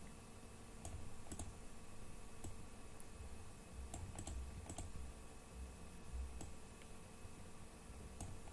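Faint, scattered clicks of a computer mouse and keyboard, a quick cluster about four to five seconds in, over a low steady hum.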